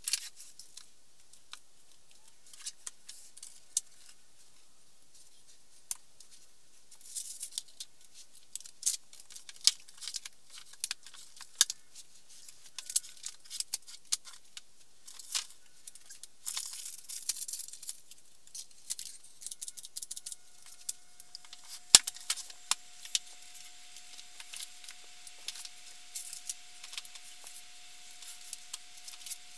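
Books being handled, pulled off shelves and set down: a scatter of light knocks, taps and paper rustles, with one sharper knock about two-thirds of the way through. A faint steady tone comes in after about 20 seconds.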